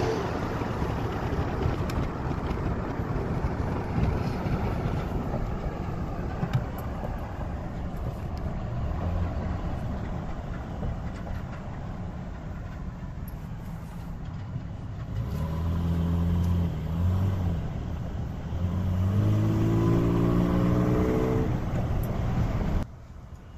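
Car road noise heard from inside a moving car: a steady low rumble of tyres and engine. About two thirds of the way in a low engine hum comes up, and near the end an engine rises in pitch as it speeds up; the sound cuts off abruptly just before the end.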